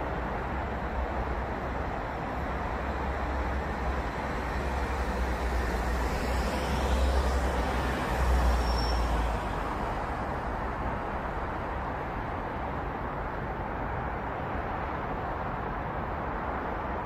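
Steady city road traffic: a continuous wash of tyre and engine noise. In the middle it swells with a deep rumble, loudest a little past eight seconds, as a vehicle passes closer, then settles back.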